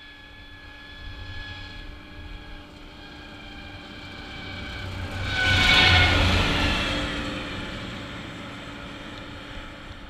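John Deere 9600 combine driving over on the road, its diesel engine running. It approaches, is loudest as it passes overhead about six seconds in, then fades away with a slight drop in pitch.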